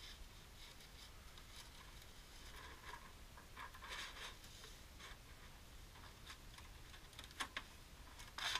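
Hands rubbing and sliding along a thin rolled-metal tent-stove flue pipe, giving faint scratching and rustling with a few light clicks near the end, muffled by a camera housing.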